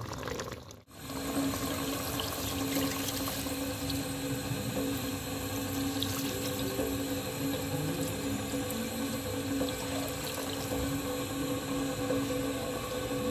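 Water poured in a steady stream into a stainless stockpot of simmering beef broth, topping up soup that has boiled down.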